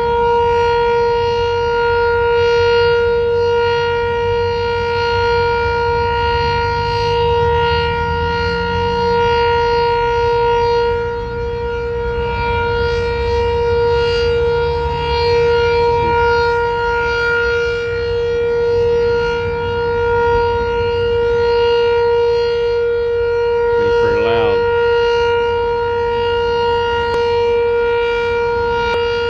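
Sentry 7V8 outdoor warning siren sounding a loud, steady tone on test, its pitch held level without rising or falling.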